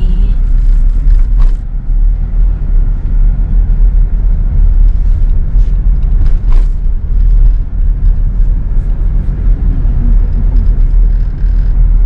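Car driving along a road, heard from the vehicle: a steady low rumble of engine and tyres, with a couple of brief knocks.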